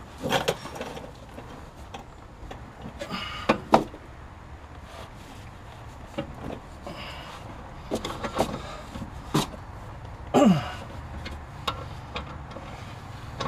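Wrench and breaker bar working a stubborn front-suspension bolt: scattered metallic clicks and knocks of the tools, with a short falling creak about ten seconds in as the bolt begins to loosen.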